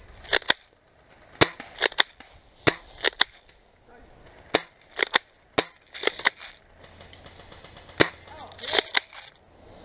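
Airsoft guns firing semi-automatic shots: sharp snapping reports, some single and some in quick pairs, about a dozen scattered irregularly through the exchange.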